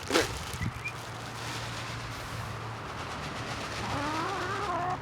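Domestic chickens clucking and calling, with a couple of drawn-out wavering hen calls near the end, over a steady background hiss. A faint low hum sits underneath in the middle.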